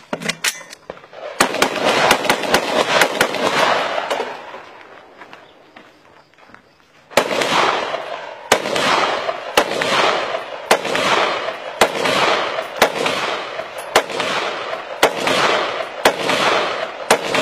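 Rifle gunfire: a rapid string of shots from about a second and a half in, a short lull, then single shots about once a second, each with a long echoing tail.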